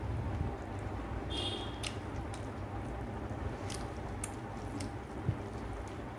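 Fingers mixing rice and chicken curry on a plate, soft wet squishing, with chewing and a few sharp little mouth clicks.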